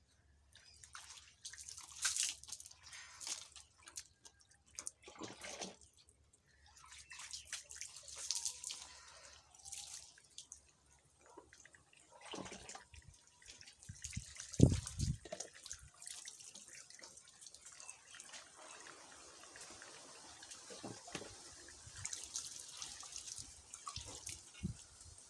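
Water poured from a plastic dipper splashing over a person and dripping onto the floor, in irregular bursts with short pauses. One loud low thump about halfway through.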